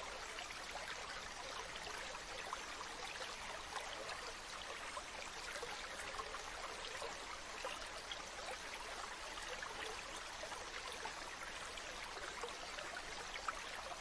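Shallow stream flowing over low rocky cascades: a steady splashing rush of water.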